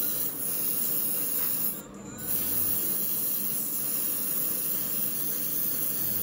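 Airbrush hissing steadily as it sprays paint, cutting out briefly about two seconds in.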